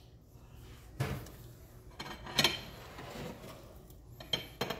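A plate and kitchen utensils being handled, giving a few separate knocks and clinks: one about a second in, the loudest about halfway through, and a couple more near the end.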